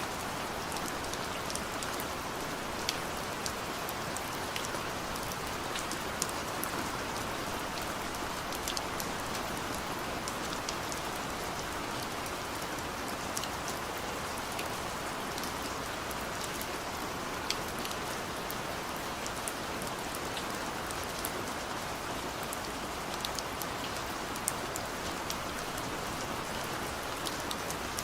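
Steady rain falling, an even hiss with many scattered sharp drips and drop impacts.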